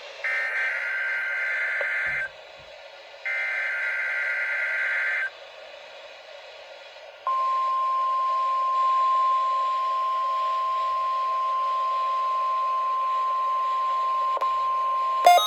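NOAA Weather Radio test alarm signals received over a weather radio. First come two chirping SAME digital header bursts of about two seconds each, a second apart. About seven seconds in, the steady 1050 Hz warning alarm tone starts and holds for about eight seconds over a background hiss, and the choppy end-of-message data bursts begin near the end.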